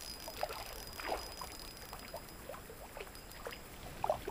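Faint, irregular small water splashes and trickles, a few short sounds a second, as a hooked fish is reeled in close.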